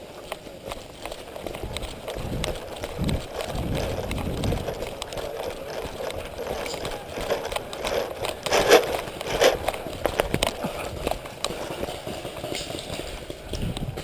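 Running footsteps on a woodland dirt path, an uneven patter of footfalls with the rustle and rattle of the runner's gear. A couple of louder sharp knocks come a little past the middle.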